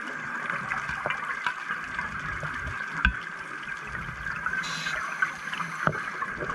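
Underwater scuba-diving sound: steady bubbling and hiss from divers' regulators, with scattered small clicks and a brief rush of high hiss about five seconds in.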